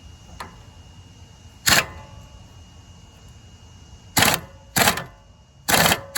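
Short, loud bursts of tool noise on the Snapper Trail Cruiser's front suspension hardware: one about a second and a half in, then three close together in the last two seconds, as a stuck shock bolt is being worked loose.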